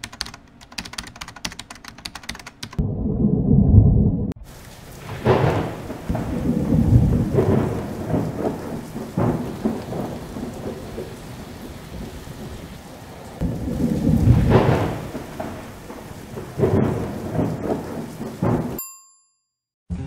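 Thunderstorm: steady heavy rain with thunder rolling again and again. A loud deep rumble builds about three seconds in and cuts off sharply, and more rolls swell up through the middle and near the end before the sound stops abruptly.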